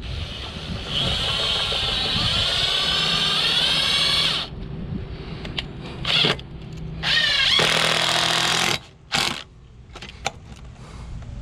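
Power drill running in bursts: a long run of about three and a half seconds whose whine climbs slightly in pitch, a short blip, then a second run of under two seconds and a last brief blip.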